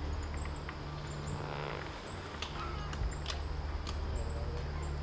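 Small birds giving short, high chirps, repeated irregularly over a steady low hum.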